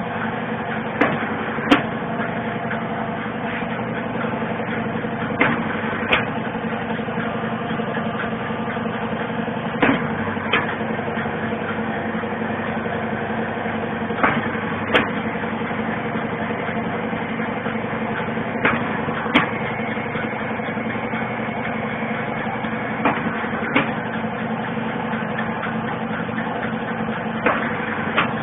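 Eye-drop cap sealing machine running with a steady hum. Every four to five seconds its cycle gives a pair of sharp clicks about a second apart.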